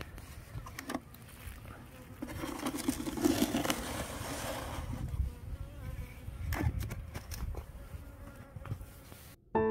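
Asian honeybees (Korean native bees) buzzing in a low hum around an opened hive, the buzz swelling about two seconds in, with a few sharp knocks mixed in.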